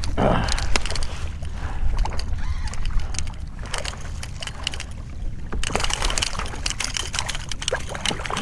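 Hooked speckled trout splashing and thrashing at the water's surface beside a kayak as it is reeled in, a run of short splashy slaps.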